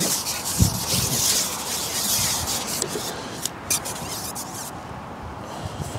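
Long carbon fishing pole, a Browning Z9-2, being pulled back after a lost fish, its sections scraping and rubbing as they slide. The rubbing is strong for about three seconds, then gives way to a few sharp clicks and dies down.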